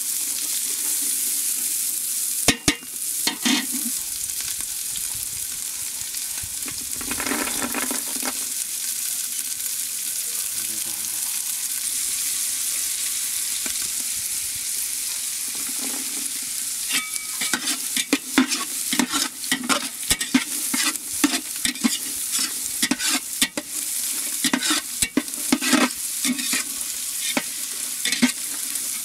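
Green peas frying in oil in a large aluminium pot: a steady high sizzle, with a metal spatula scraping and knocking against the pot as it stirs. The scraping comes thick and fast in the second half.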